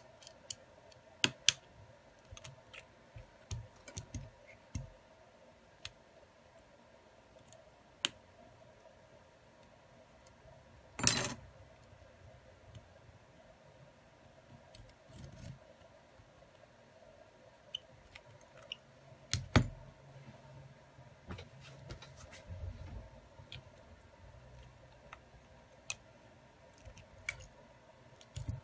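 Hands handling an opened Xiaomi Redmi Note 10S: scattered small clicks and taps of its plastic frame and parts against the repair mat, with a short louder rustle about eleven seconds in and a sharp click a little past halfway, over a faint steady hum.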